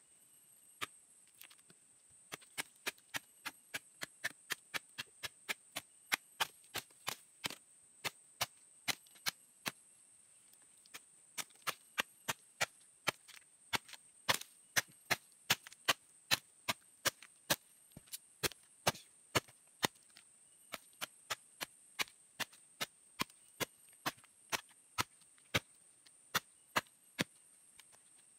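Machete chopping repeatedly along a hairy cu li fern rhizome, cutting off its fibre and roots: sharp separate strikes about two to three a second, with a short pause near the middle.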